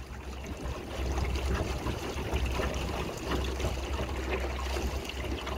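Small boat under way: water rushing and splashing along the hull, over a steady low rumble.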